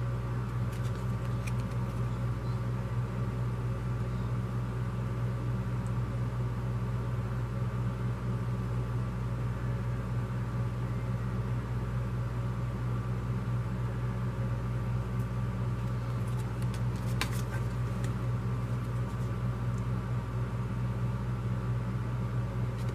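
Steady low hum of a running machine or appliance, even in level throughout, with a few faint clicks of paper cards being handled, the clearest about 17 seconds in.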